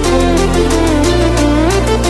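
Background music with a steady beat, a gliding melody and a bass line.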